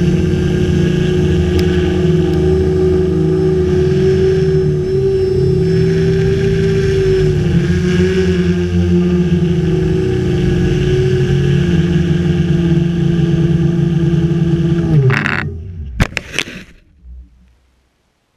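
Quadcopter's electric motors and propellers buzzing steadily in flight. About fifteen seconds in the pitch drops suddenly as the motors lose power, the sign of its speed controller shorting out from melted snow. A few sharp knocks follow as it hits the ground, then the sound dies away.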